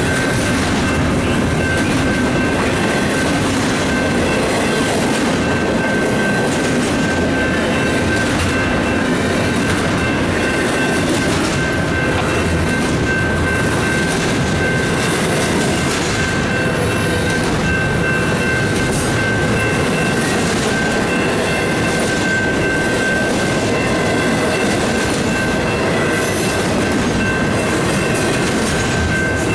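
Double-stack intermodal well cars of a freight train rolling steadily past, their wheels clattering over the rail joints. A steady high-pitched tone runs over the rolling noise.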